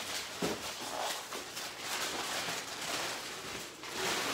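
Gift wrapping and packaging rustling and being handled, on and off, with scattered light knocks.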